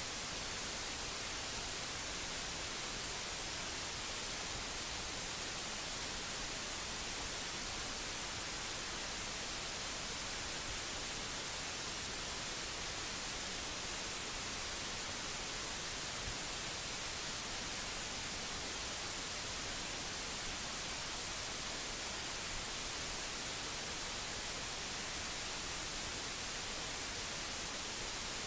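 Steady, even hiss with nothing else in it, strongest in the highs: the background noise of a screen recording's microphone or audio input with no one speaking.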